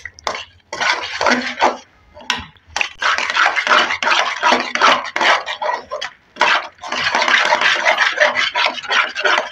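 Spoon scraping and stirring thick semolina halwa against the bottom of a pan, as the halwa is worked dry so it does not stick. The scrapes come as short separate strokes at first, then run together into nearly continuous scraping about three seconds in.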